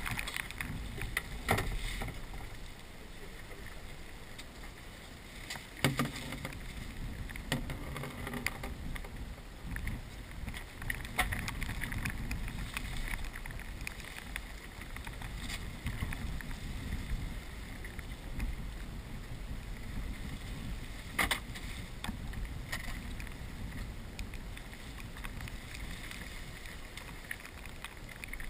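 Small boat out on the water: a steady low wind rumble on the microphone, with a few sharp knocks or clicks scattered through.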